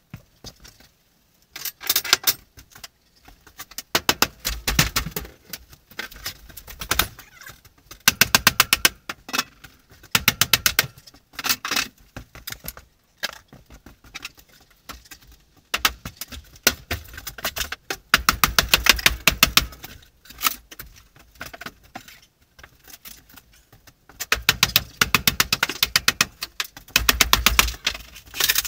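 Camper interior wall paneling being pried and torn out: runs of rapid clattering clicks and knocks, a second or two at a time with short pauses between.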